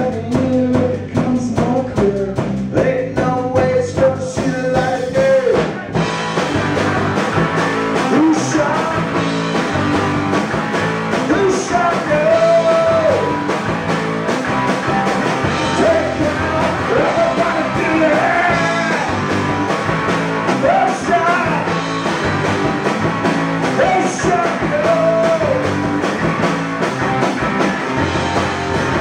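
Live rock band playing: electric guitar, electric bass and drum kit. About six seconds in the playing becomes denser and fuller, and a couple of seconds later a singer's wavering vocal line comes in over it.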